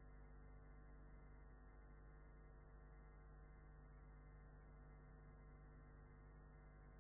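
Near silence: a faint steady hum and nothing else.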